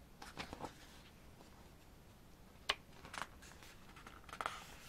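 Pages of a photobook being turned by hand: a few faint paper swishes and rustles, with one sharp tick a little under three seconds in.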